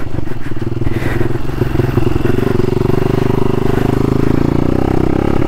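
Modified single-cylinder engine of a Hero Impulse motorcycle running hard under throttle. Its note holds steady through the middle and eases off near the end.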